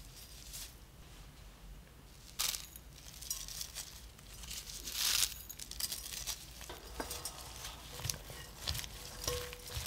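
A gloved hand tossing blanched bean sprouts in a glass bowl. There are crinkly, squishy rustles and light clicks against the glass, busiest in the second half, after a brief loud rustle about halfway through.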